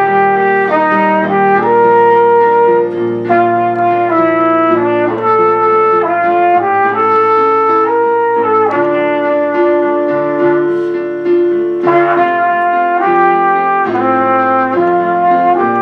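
Instrumental music: a brass-sounding melody over held chords, the notes stepping from one pitch to the next.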